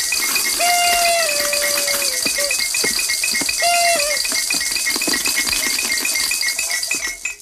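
Electronic sound effect of a fairy-tale wish machine at work: a dense rattling hiss over a quick, repeating beeping pattern, with two short whistling tones that slide up and down. It cuts off suddenly near the end.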